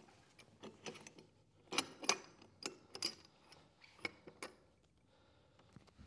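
Light metal-on-metal clicks and clinks from a G80 locking differential case being handled and its cross pin worked into place: a string of irregular taps, loudest about two seconds in, then a pause near the end.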